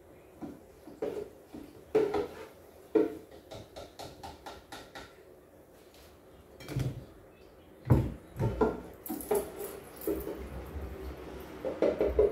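Slotted spoon knocking and scraping against a stainless deep fryer and a bowl as fried mikate dough balls are scooped out and dropped in: a run of irregular clicks and knocks with a few duller thumps.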